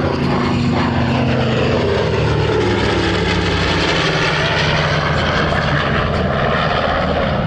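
Piston-engine propeller warbird flying past, a loud steady drone whose engine note falls in pitch over the first few seconds as it goes by.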